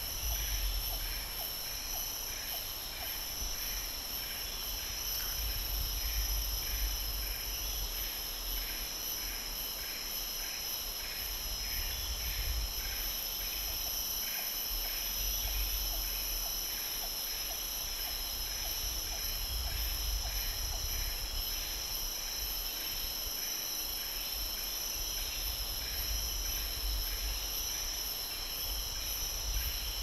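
Tropical forest insects calling in several steady high-pitched layers, with one chirping about twice a second. A low rumble swells and fades beneath them.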